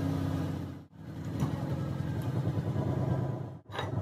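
Steady low engine-like hum, broken by two brief dropouts: about a second in and near the end.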